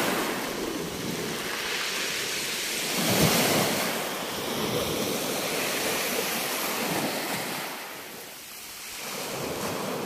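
Small sea waves breaking and washing over a pebble beach; the surf swells about three seconds in and dies down shortly before the end.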